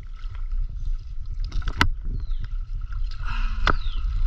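A bamboo raft being poled through a shallow river: a bamboo pole knocks sharply against the raft or rocks, most clearly twice, about two seconds and three and a half seconds in, over a steady low rumble of water moving around the raft.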